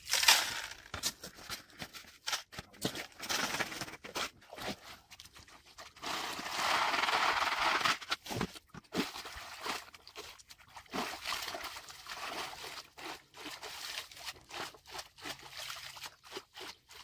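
Gravel and sand being scooped, sieved and washed for gold panning in shallow water: scattered crunches, scrapes and splashes, with a steady rushing hiss for about two seconds midway.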